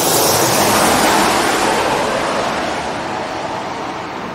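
Jet engines of a Jin Air airliner on landing approach passing low overhead: a loud rushing roar, loudest about a second in, that then fades as the plane moves away, its higher hiss dying out first.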